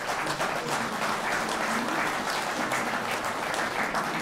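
Audience applauding in a hall, a steady patter of many hands clapping.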